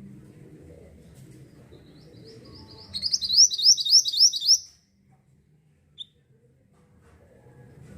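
Mantenan songbird singing: a loud, fast phrase of about seven sharp, high notes, starting about three seconds in and lasting under two seconds. A single short chip follows a little later.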